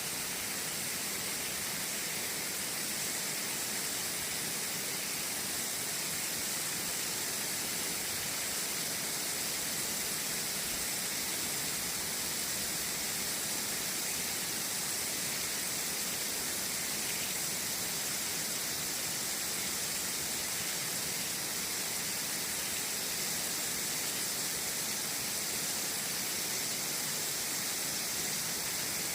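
Garden hose running: a steady hiss of water, even throughout.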